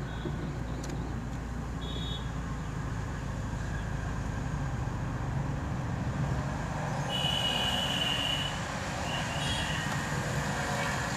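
Maruti Suzuki Baleno hatchback's engine running at low revs as the car creeps slowly, a steady low hum. A few short high tones sound over it, the clearest about seven seconds in.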